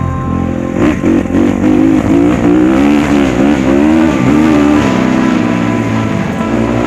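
Dirt bike engine revving, its pitch rising and falling again and again as the throttle opens and closes, starting about a second in.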